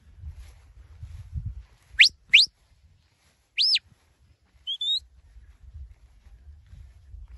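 Shepherd's whistle commands to a working sheepdog: two quick rising whistles, then an up-and-down whistle, then a short rising note. A low rumble runs underneath.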